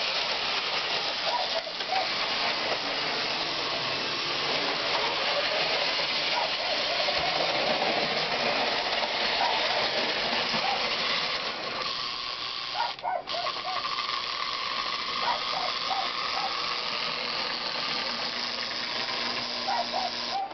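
Lionel 2026 model steam locomotive running on three-rail track: a steady mechanical whir and hiss from its motor and wheels, with a brief dip about thirteen seconds in.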